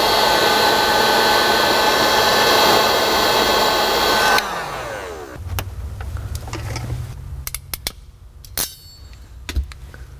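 Heat gun blowing steadily, switched off about four seconds in with its fan winding down in a falling whine, followed by a few light clicks and knocks of handling.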